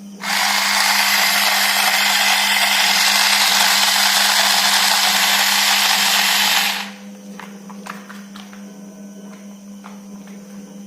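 Toy train's small electric motor running with a loud, steady whir for about six and a half seconds, switched on and off abruptly, over a faint steady hum.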